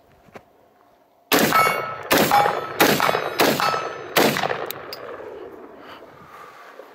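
Five rifle shots from a Black Rain BRO Scout AR-15 fired in quick succession, about one every 0.7 seconds, each echoing across the range. Faint ringing comes from steel targets being hit.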